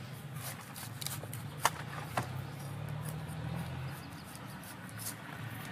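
Large kitchen knife cutting and shaving the rough skin off a taro corm: short, irregular scraping strokes, the sharpest about a second and a half in, over a low steady hum.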